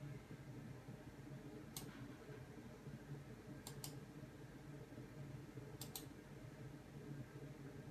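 Quiet room tone with a few faint, sharp clicks: one about two seconds in, then two quick pairs, near four and near six seconds in.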